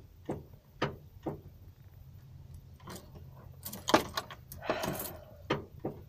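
Ignition of a Ford Econoline E-350 motorhome tried over and over: the key and key ring jangle, and each try brings only a short sharp click, with no cranking and no engine start. The engine won't start, which the owner puts down to a failed starter.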